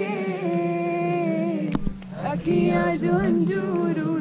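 A woman singing unaccompanied, holding long notes that bend up and down, with a brief knock near the middle.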